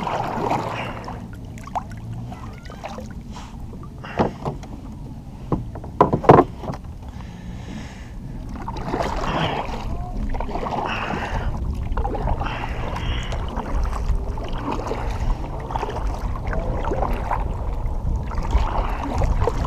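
Kayak paddle strokes dipping and splashing through the water. A few sharp knocks come in the first several seconds, then from about eight seconds in a steady run of strokes every second or two, over a low rumble.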